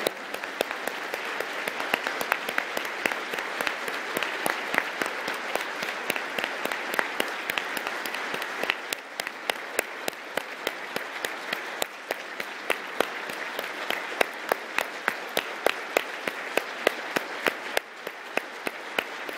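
Concert hall audience applauding after a performance, a dense mass of clapping. In the second half the clapping falls into an even beat of about two claps a second.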